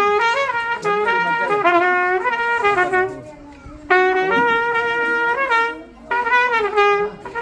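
A wind instrument, heard as a trumpet-like horn, playing a loud melody of held, bending notes. It plays two long phrases with a brief pause between them, then shorter notes near the end.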